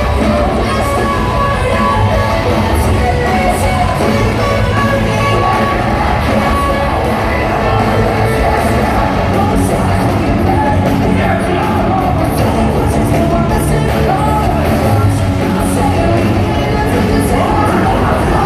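Live rock band playing with a singer, recorded from within the audience, with yells from the crowd.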